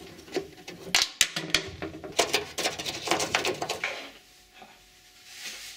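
Clicks and knocks of the plastic front cowl of a Piaggio Ape 400R being worked loose and lifted off the steel body, busiest between about one and four seconds in.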